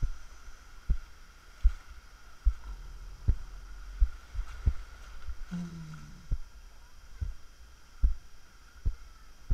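Muffled, deep thumps about one every second as the action camera is jostled and knocked while its wearer wades through shallow sea water, over a faint steady high whine.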